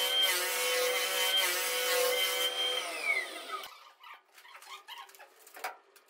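Large electric parquet floor sanding machine running with a steady whine. It is switched off about two and a half seconds in, and its pitch falls as the motor winds down. A few faint knocks follow.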